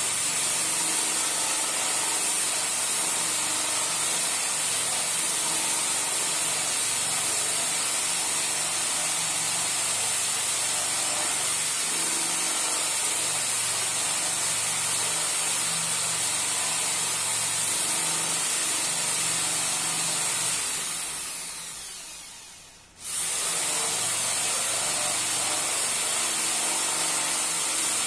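Electric drill running steadily, spinning a wooden dowel in a homemade lathe jig while it is hand-sanded. The sound fades away about three quarters of the way through and cuts back in suddenly about two seconds later.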